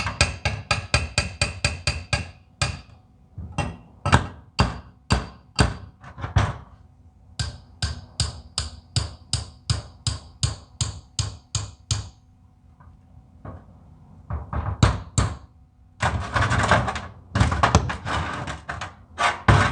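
Hammer blows on steel, testing the strength of a fresh weld on a tractor's three-point mount; the weld holds. The strikes ring and come in runs, fast at first, slower in the middle, with a short pause and then a dense flurry of blows near the end.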